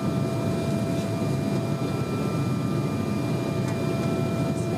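Cabin noise inside an Embraer 195 airliner on approach: a steady roar of airflow and its General Electric CF34-10E turbofan engines, with a few steady whining tones over it.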